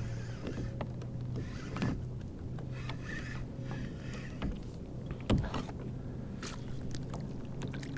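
Fishing reel being cranked and gear handled on a plastic kayak while a hooked fluke is brought to the surface: light scattered clicks over a steady low hum, with a sharp knock about five seconds in.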